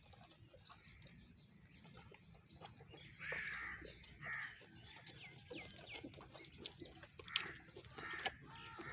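Chickens clucking faintly in a farmyard, with a few short calls about three to four seconds in. Two sharp clicks near the end.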